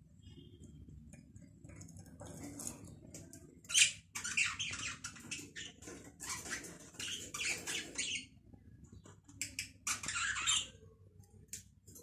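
Budgerigars chattering and squawking in runs of harsh, scratchy high-pitched calls. The calling starts quietly, then comes loud from about four seconds in for several seconds, pauses, and returns in a short burst about ten seconds in.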